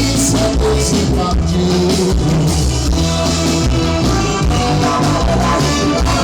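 Loud band music with a heavy, steady bass line, mostly instrumental here, before the vocals of the song come in.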